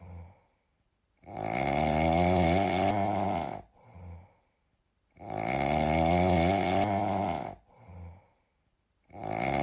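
A cat meme sound clip of a cat making a long, wavering drawn-out sound, which sounds like snoring. It comes three times, each about two and a half seconds long and about four seconds apart, with a short faint breath between.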